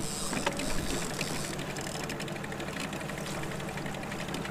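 Electric downrigger motor whirring steadily with fine rapid ticking as the weight is run to a new depth, over the steady hum of the boat's engine.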